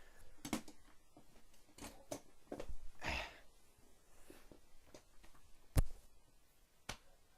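Scattered small knocks and clicks with a brief rustle about three seconds in; the sharpest knock comes about six seconds in.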